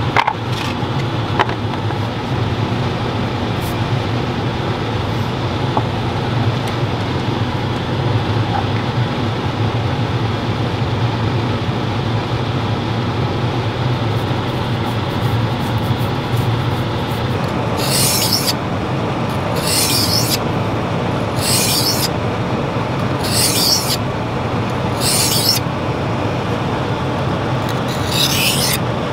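Steel knife blade drawn across an oiled sharpening stone, a hissing scrape repeated six or so times about two seconds apart, starting a little past halfway: putting an edge back on a dulled blade. Under it runs the steady hum of the bus's air conditioner.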